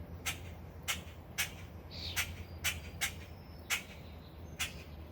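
Adult bird, a starling or blackbird, squawking over its grounded fledgling: short, harsh calls repeated about twice a second, over a steady low hum.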